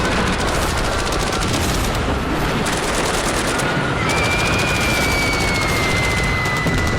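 Sustained rapid automatic gunfire, a dense fusillade of machine-gun fire with no pauses. About four seconds in, a long high held tone joins it, sliding slightly down in pitch for about three seconds.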